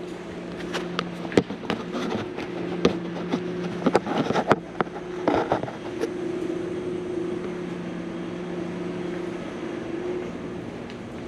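Footsteps and handling knocks, a cluster of sharp clicks in the first six seconds, over a steady mechanical hum from building equipment.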